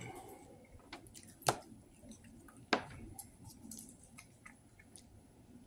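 A person eating at a table: quiet chewing and handling noises with scattered sharp clicks, the two loudest about a second and a half and nearly three seconds in.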